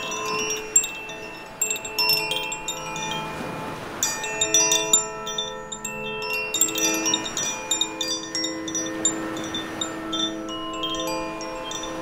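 Koshi 'Air' wind chime ringing as the wind swings its clapper against the tuned metal rods inside its bamboo body. The chime gives clusters of bright overlapping tones that hang on after each strike, with brief lulls about two and six seconds in.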